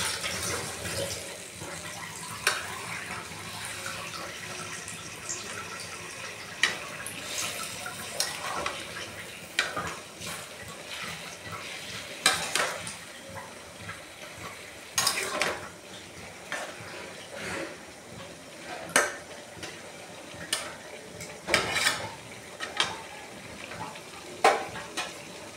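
Metal spatula scraping and clinking against a metal kadai at irregular intervals as a watery curry is stirred, over a steady low sizzle and simmer.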